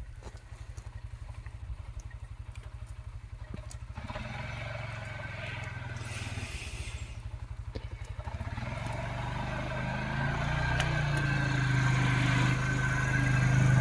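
ATV engine running with a steady low pulse, growing louder over the second half as it comes nearer.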